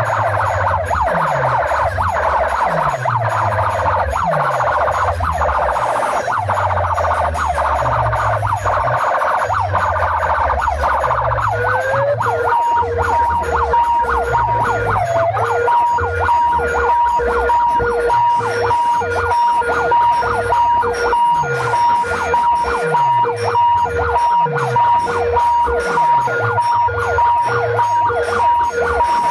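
DJ sound system playing at full volume: deep falling bass drops repeat in a steady beat under siren-like electronic effect tones. About twelve seconds in, a short rising glide leads into steady pulsing beeps at two pitches.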